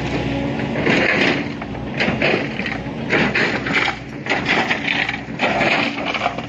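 Excavator at work under a running engine, with an irregular series of clattering knocks and scrapes, typical of boulders being scooped and dropped.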